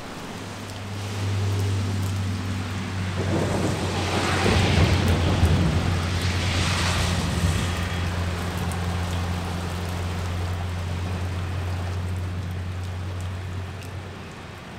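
Heavy rain falling on pavement, with two louder swells of rumbling noise about four and seven seconds in, over a steady low hum.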